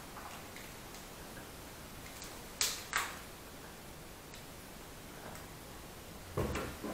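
A steel bar clamp being worked by hand as it is tightened: a short scrape about two and a half seconds in, a sharp click just after, and a duller knock near the end.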